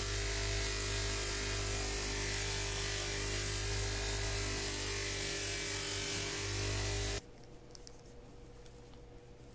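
Bench polishing motor running with its buffing wheel spinning, a steady hum with a hiss as a watch bracelet is buffed against the wheel. The sound cuts off suddenly about seven seconds in, leaving only faint rubbing of a cloth on a watch bezel.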